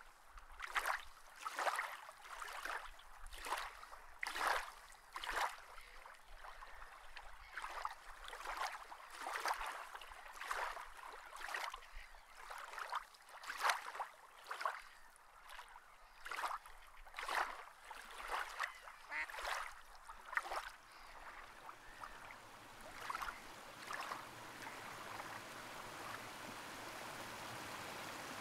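Water ambience: a run of short splashes or swishes about every two-thirds of a second, giving way about 21 seconds in to a steady rushing like a stream that slowly grows louder.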